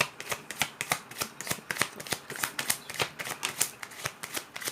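A deck of tarot cards being shuffled by hand: a quick, uneven run of crisp card clicks and flicks.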